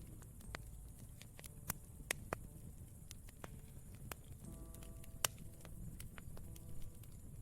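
Campfire wood crackling: irregular sharp pops and snaps over a low steady rumble of the fire, the loudest pop about five seconds in. Faint background piano chords join about four and a half seconds in.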